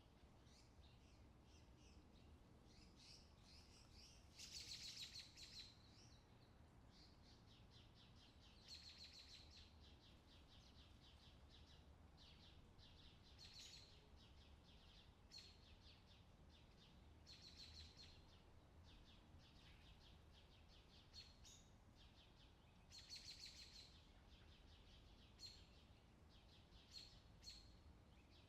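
Faint summer outdoor ambience: birds chirping and trilling in repeated short bursts, over a low steady hum.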